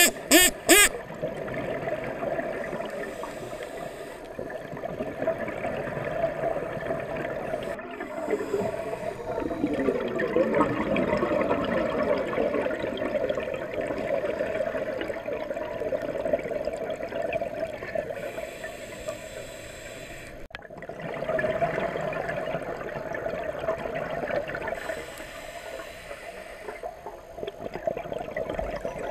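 A scuba diver's regulator breathing, heard underwater through the camera housing: a steady gurgling rush of exhaled bubbles, with a hissing inhalation every several seconds. Three sharp clicks in the first second are the loudest sounds.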